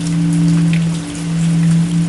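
Large pagoda bell's lingering hum after a strike: a deep, steady two-note tone that swells and fades about once a second. Steady rain patters underneath.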